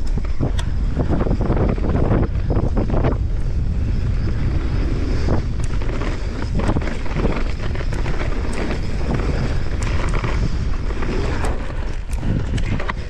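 Wind rushing over the camera microphone as a Santa Cruz Megatower mountain bike descends a dirt trail at speed, with tyre noise and frequent short rattles and knocks from the bike over rough ground.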